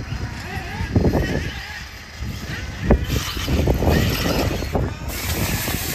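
A 1/8-scale RC buggy running, with rumbling noise and a couple of sharp knocks, about a second in and again near three seconds.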